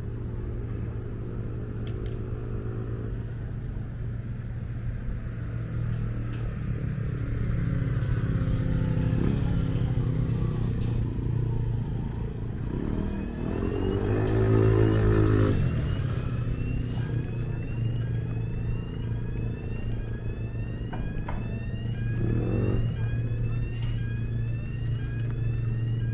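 A motorcycle passing close by about halfway through, its engine note swelling and rising then falling in pitch as it goes by. This is over a steady low engine hum of traffic.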